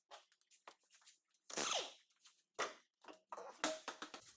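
Scattered light metallic clicks and short scrapes from tools and parts being handled at a car's rear wheel hub and brake.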